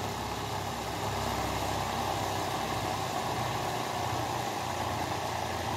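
Small 3-volt DC motor driving a 3D-printed generator's rotor, running steadily.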